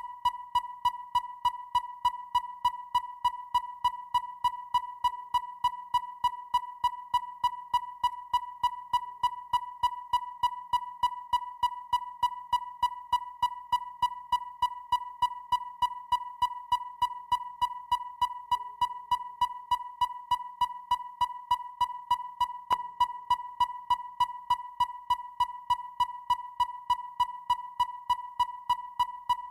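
Depth finder (sonar) beeping: one steady electronic tone pulsing in rapid, evenly spaced beeps, each dying away quickly.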